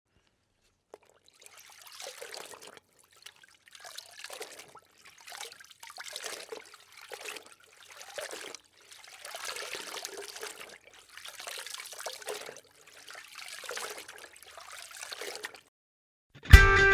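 Water splashing in a series of short separate bursts, about one every one to two seconds.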